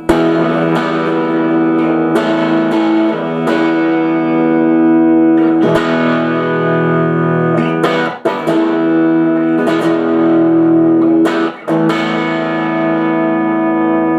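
Aria STG series electric guitar with a series of chords strummed and left to ring, one struck every second or two, with two brief breaks between chords. The coil-tap switch is pushed down, which the player takes to be the full humbucker setting.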